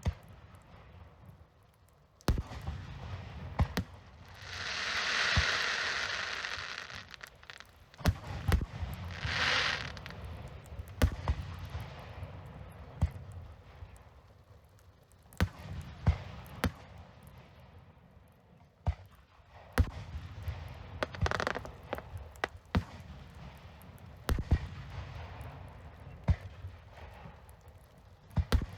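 Fireworks display: sharp bangs of bursting shells at irregular intervals. A longer rushing noise swells from about four seconds in to about seven, with shorter ones near ten seconds and near the twenty-one-second mark.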